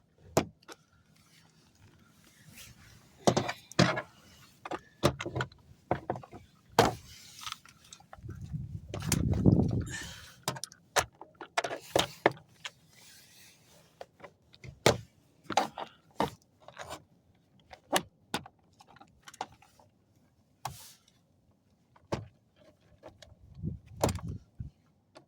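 Plastic door-panel retaining clips popping loose as a car's interior door panel is pried off with a flathead screwdriver. Scattered sharp clicks and knocks, with a longer rumbling scrape about eight seconds in as the panel is worked free.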